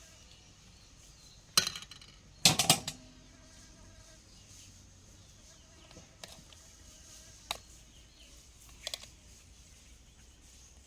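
Cooking utensils knocking and clattering against cookware: a sharp knock, then a louder cluster of clatters about two and a half seconds in, and a few lighter knocks later. Insects buzz faintly in the background.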